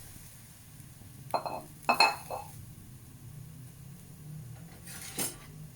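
Metal utensil clinking against a cooking pot: a couple of sharp, ringing clinks about a second and a half to two seconds in, and another shorter knock near the end, over a low steady hum.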